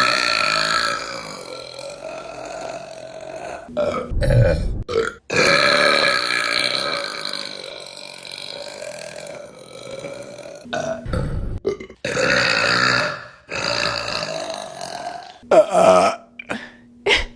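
A series of loud, drawn-out burps from women, one after another with abrupt breaks between them; the longest lasts about four seconds.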